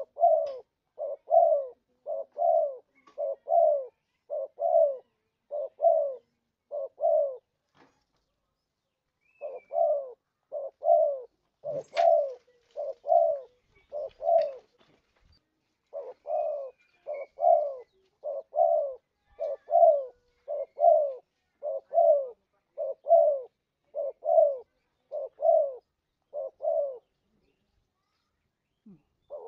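Spotted dove (terkukur) cooing: runs of evenly spaced coos, about two a second, in three bouts with short pauses between them. This is a lure call for drawing in spotted doves. There is a single sharp click about twelve seconds in.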